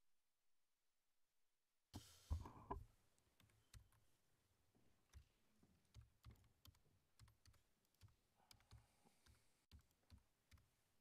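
Dead silence, then about two seconds in the room sound cuts in with a thump and rustle, followed by faint, scattered clicks and taps of computer keyboards and desk handling.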